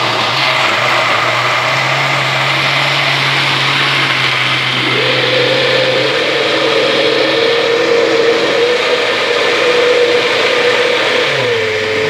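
Vintage Walita Delta Eletrônico blender running at speed, chopping carrots with eggs and oil into carrot cake batter: a loud steady motor whir. Its tone shifts about five seconds in and drops slightly near the end.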